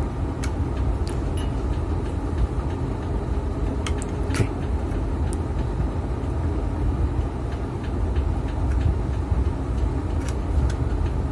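Steady low rumble with a few light, sharp clicks of a screwdriver tip against the metal parts inside an opened exhaust fan motor around its bushing.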